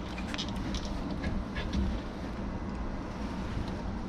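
Steady low rumble of workshop background noise, with a few light clicks and taps of metal parts being handled.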